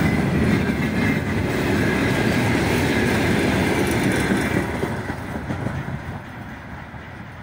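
Loaded freight train of open gondola wagons rolling past close by, its wheels running over the rails. The sound falls away over the last few seconds as the end of the train passes and moves off.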